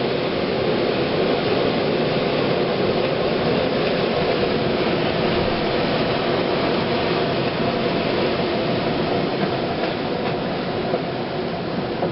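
A powerful gust of wind rushing steadily, loud and unbroken, easing slightly near the end.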